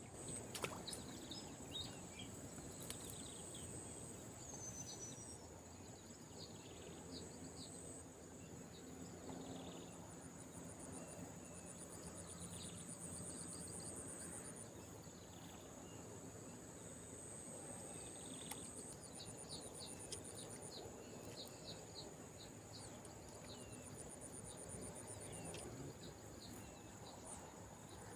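Insects, crickets among them, calling steadily: a continuous high buzz with trains of rapid pulsed trills coming and going, and scattered short bird chirps over a low rumble of ambient noise.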